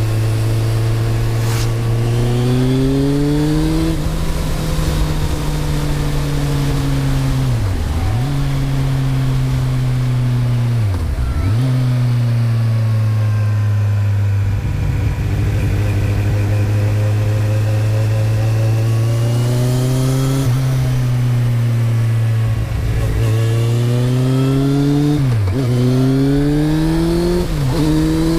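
2008 Kawasaki Z1000's inline-four running through a Mivv GP exhaust with the dB killer fitted. The engine speed rises and falls slowly over several seconds, with a few brief sharp dips in pitch.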